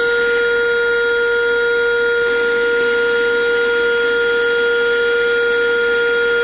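Handheld 12 V car vacuum cleaner running steadily: a loud, unchanging high motor whine over the rush of air.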